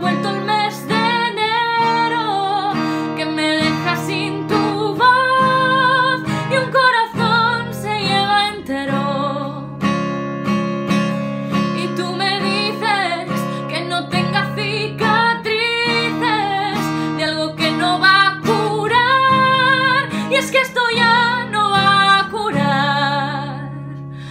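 A woman singing in Spanish to her own strummed acoustic guitar.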